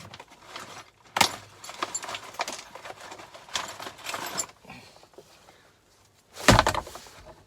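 Rummaging among metal tools and small hard objects: irregular clinks, rattles and clatters, then one heavier thump about six and a half seconds in, as of something being put down.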